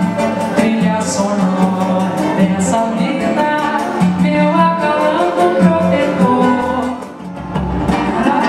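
Live band playing a samba-style song: acoustic guitar and a small strummed string instrument over drums and bass, with singing. About seven seconds in the music dips briefly, then comes back fuller.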